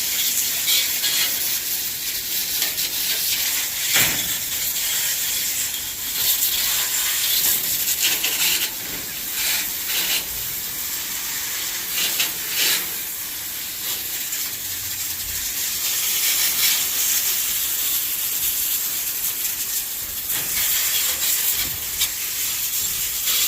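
Water spraying from a garden hose, washing down aviary cages to soften the mess: a steady hiss that swells and dips now and then as the spray moves.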